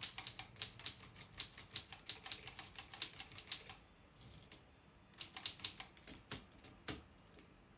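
Typewriter being typed on: a fast run of key strikes, a pause of about a second and a half, then a shorter run and a few single strikes.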